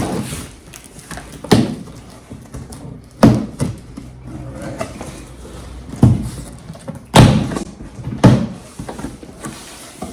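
A large cardboard box being opened and handled, with about five sharp thumps and knocks spread out, the loudest about three seconds in and about seven seconds in.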